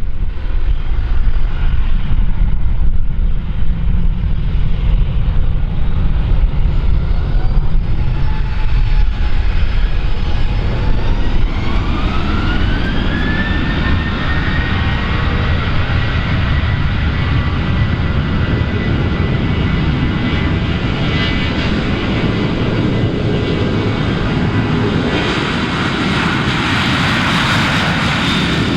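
Airliner engines spooling up to takeoff power over a steady low rumble. A whine rises in pitch about a third of the way in, then holds steady. The roar grows fuller near the end.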